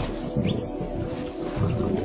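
Low, rough growling rumbles from a lion, a few short ones at uneven intervals, under soft sustained background music.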